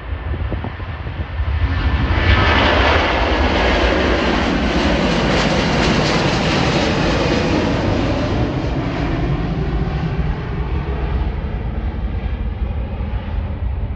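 Airbus A330 twin-engine jet airliner at takeoff thrust, its engine roar swelling sharply about two seconds in as it passes, then slowly fading away.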